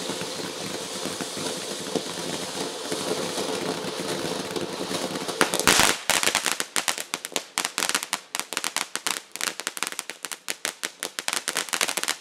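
Consumer ground fountain firework hissing steadily as it sprays sparks. About six seconds in comes a loud burst, then rapid, irregular crackling from its crackle effect.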